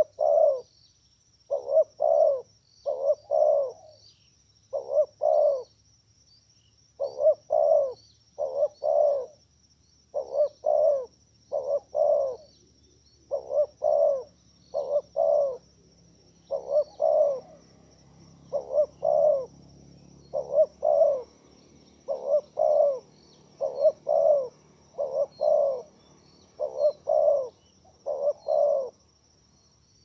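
A dove cooing over and over, low coos in pairs about every one and a half seconds, with a thin steady high whine and faint small chirps behind it.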